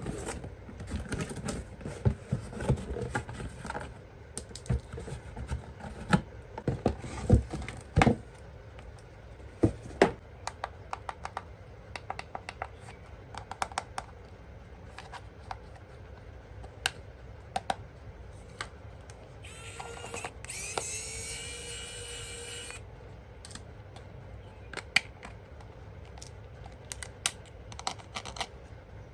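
Toys and packaging being handled: irregular clicks, taps and knocks, busiest in the first third. About two-thirds through comes a whine of about three seconds that rises in pitch and then holds.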